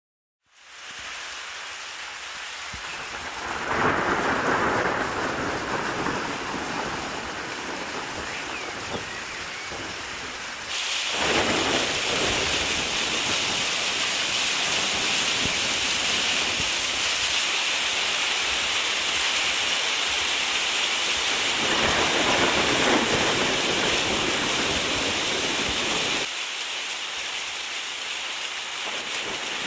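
Steady rain falling, with rolls of thunder rumbling through it three times: about four seconds in, around eleven seconds, and again in the last third. The rain suddenly grows heavier about a third of the way in and eases again near the end.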